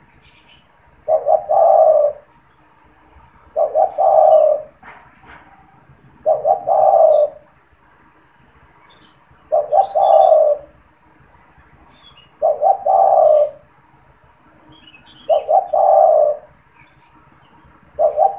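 A spotted dove (tekukur) cooing over and over, roughly every three seconds and about seven times. Each phrase is two or three quick short notes running into a longer coo.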